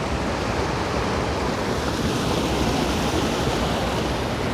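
Small waterfall on a rocky creek, water rushing steadily over the drop.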